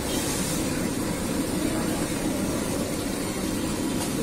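Steady low rumble of street traffic, with no distinct knocks or strokes.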